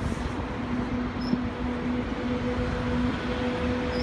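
Exo commuter train's double-deck passenger coaches rolling past: a steady rumble of wheels on rail with a constant hum running through it.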